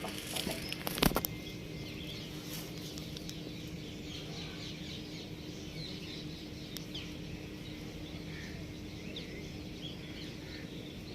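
Small birds chirping on and off, with a few sharp knocks in the first second, the loudest about a second in, over a steady low hum.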